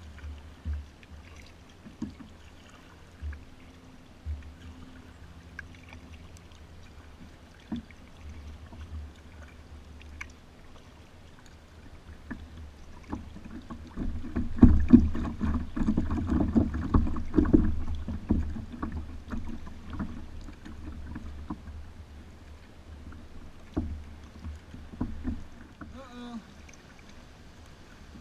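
Kayak paddling on a slow river: paddle strokes dipping and splashing and water lapping at the hull, with a low rumble underneath. The splashes come about once a second at first, then grow louder and busier for a few seconds in the middle.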